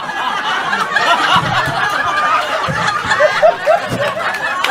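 Comedy club audience laughing hard together, a dense, sustained wave of overlapping laughter from many people.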